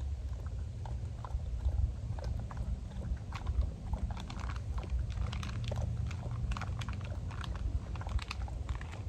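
A dog chewing and licking food from a bowl: a run of quick wet smacks and clicks, busiest in the middle and latter part, over a steady low rumble.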